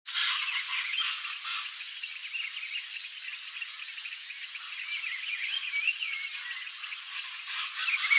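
Outdoor animal chorus: a dense steady hiss of insects with many short high chirps over it, and a single sharp click about six seconds in.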